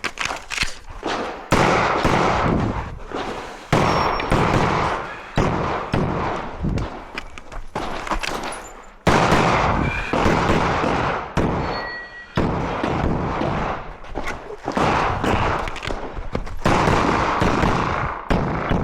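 Rapid 9mm pistol fire from a Glock 47 during a practical shooting stage: quick pairs and strings of shots with short gaps between them.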